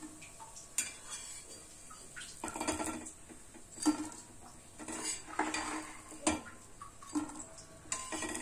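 A metal spatula scraping the dosa pan and clinking on a ceramic plate as tiny dosas are lifted off and set down: a run of irregular knocks and short scrapes, the sharpest about four and six seconds in.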